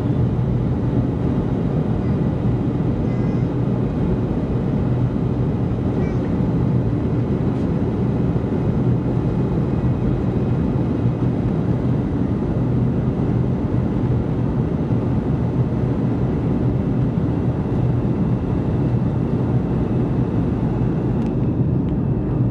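Airliner cabin noise in flight: a steady low hum and rush of engine and airflow noise, unchanging throughout.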